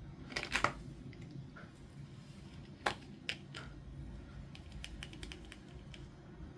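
Clicks and light taps of small plastic toy pieces and packaging being handled. There is a short cluster of clicks near the start, a sharp click about three seconds in with two more after it, then a run of quick light ticks near the end.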